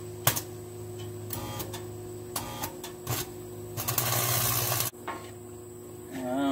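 Arc welder striking and welding a log splitter's engine mount: a few sharp strikes and short buzzy tacks, then one crackling bead of about a second near the middle, over a steady hum. A short pitched call comes right at the end.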